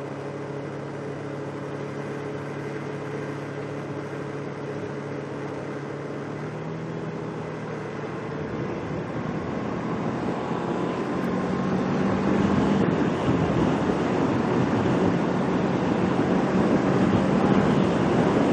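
Kawasaki Ninja 650R's parallel-twin engine running steadily, then pulling harder and picking up speed about halfway through. A rush of wind and road noise builds as it goes faster.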